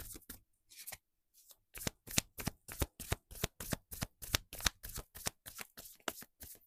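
A deck of tarot cards being shuffled by hand: a quick run of soft card clicks, about four to five a second, that starts up steadily after a short pause near the start.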